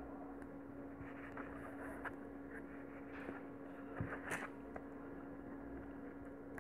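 Faint handling sounds of hand-beading: small clicks and light rustles of pearl beads and nylon thread being worked with a needle, a little more marked about four seconds in, over a steady low electrical hum.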